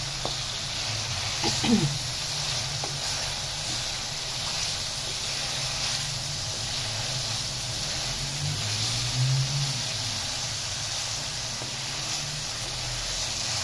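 Chicken karahi masala sizzling in oil over high heat while a wooden spatula stirs and presses it in an aluminium pan; this is the bhuna stage, as the oil separates from the masala. A brief voice sound comes about two seconds in.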